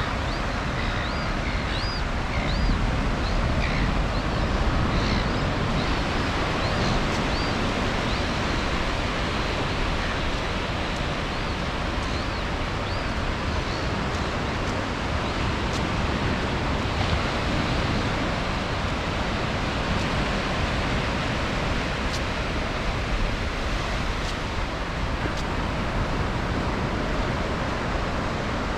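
Ocean surf breaking on a sandy beach, a steady wash of waves. Short high chirps repeat during the first eight seconds or so, then stop.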